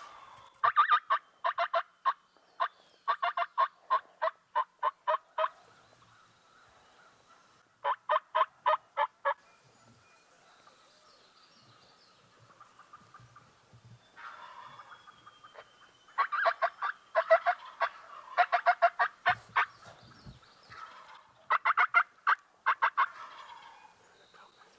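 Wild turkey calling: runs of quick, evenly spaced yelping notes, about five a second, repeated in several bursts with pauses between them.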